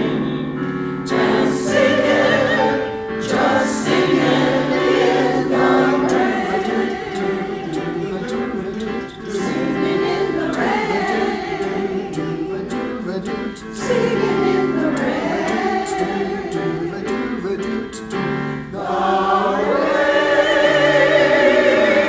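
Choir singing a choral arrangement in several parts, phrases rising and falling, closing on a loud held chord near the end.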